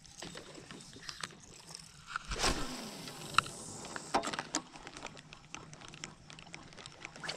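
Spinning reel being cranked to work a topwater lure, a run of small clicks and ticks, with a brief louder whoosh about two and a half seconds in.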